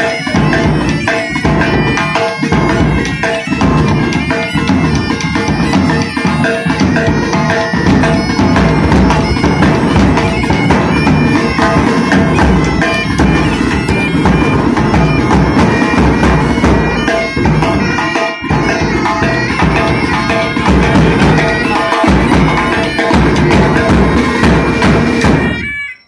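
Pipe band playing: bagpipes with a bass drum and snare drum beating time. The music stops suddenly near the end.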